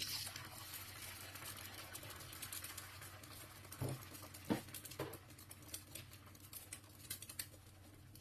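An egg frying in hot oil in a frying pan. The sizzling starts abruptly and runs on with a steady hiss, dotted with small crackles of spattering oil. A few dull knocks come near the middle.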